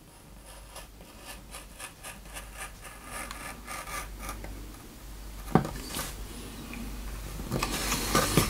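A thin high-speed-steel carving knife with a 45-degree pointed tip cutting a straight line into a wooden board: a run of short, scratchy cutting strokes that grow louder toward the end, with one sharp knock a little past halfway.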